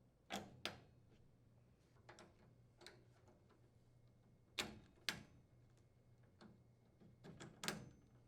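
Spark switches being pressed onto a gas cooktop's valve shafts and snapping into place: a scattered series of short sharp clicks and light knocks, some in quick pairs, with the loudest about halfway through and near the end.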